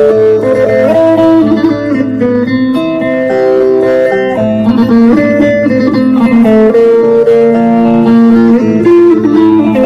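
Electric bağlama, a Turkish long-necked lute, played with a plectrum: a folk melody of plucked notes stepping from one pitch to the next every half second or so.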